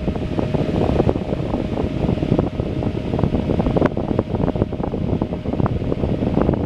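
Early-1950s 10-inch Diehl table fan running at its single speed, its strong airflow buffeting the microphone with a loud, uneven rush of wind.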